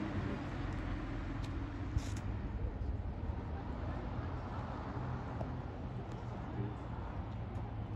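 Diesel engine of a Setra city bus running as it pulls slowly toward the stop, a steady low hum, with a brief click about two seconds in.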